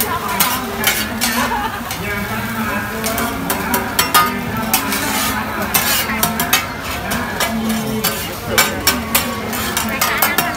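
Two metal spatulas scraping and clinking rapidly and irregularly on a large round flat griddle while egg sizzles in oil.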